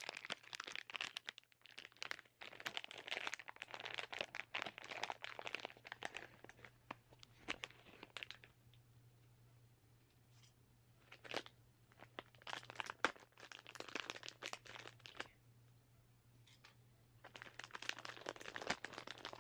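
Packaging of a mystery blind-box keychain being torn open and crinkled by hand, in several bouts of crackling and tearing with short pauses between.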